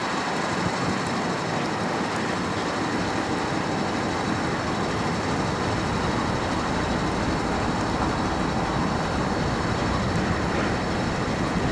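Steam locomotive approaching slowly, a steady rushing noise of steam and exhaust without distinct beats; a low rumble grows in after about three seconds.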